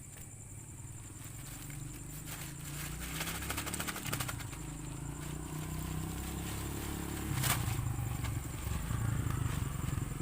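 A low rumble that grows louder, with a quick run of clicks about three to four seconds in and one sharp click about seven and a half seconds in, over a steady high drone of night insects.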